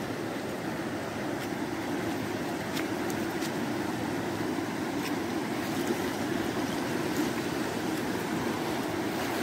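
Muddy floodwater from an overflowing creek rushing steadily over rocky ground.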